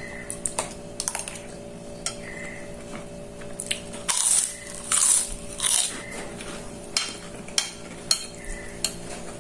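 A spoon clinking and scraping against a bowl, then three loud crunches about four seconds in as a fried kerupuk cracker is bitten and chewed, then more spoon clinks against the bowl.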